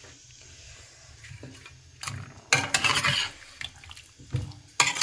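Kitchen clatter with water splashing, heard in two short loud bouts: one about two seconds in and another near the end.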